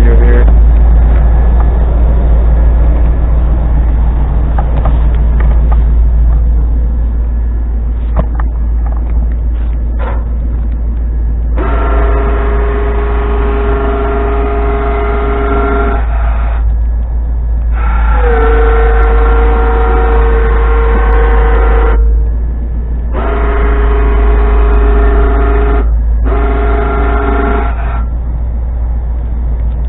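Electric winch on the front bumper of an 1989 Chevy Suburban running in four separate bursts of a steady whine, a few seconds each, starting about twelve seconds in, as it winds in its cable to lift a plow blade. The truck's engine idles with a low hum underneath.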